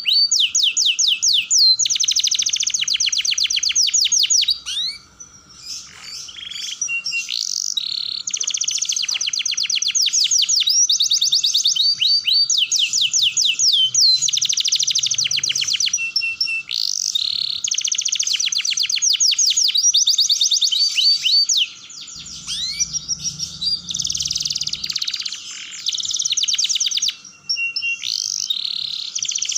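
Domestic canary singing a long song of rapid rolling trills, each run a quick series of repeated sweeping notes, with a short break about five seconds in.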